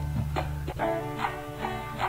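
Background music with plucked string notes over a steady beat.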